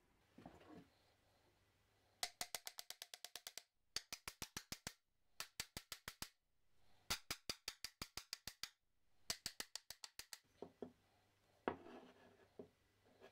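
Steel hammer head on its old wooden handle rapidly knocked against a wooden workbench in five bursts of quick taps, about eight a second, to work the head off the handle. A few single knocks and handling noises near the end.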